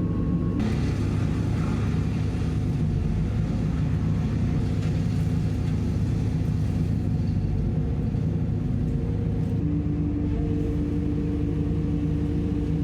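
Diesel engine of a Merlo crane running steadily under hydraulic load while the grapple-saw head is worked. A steady tone in it steps up in pitch about ten seconds in.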